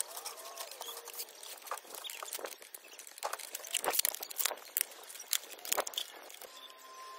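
Irregular clicks, knocks and clatter of plastic and metal parts being handled as a Dyson vacuum is taken apart, the loudest knocks about four and six seconds in.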